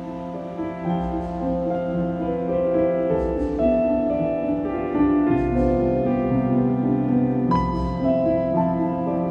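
Gentle instrumental background music with long held notes, growing louder over the first second.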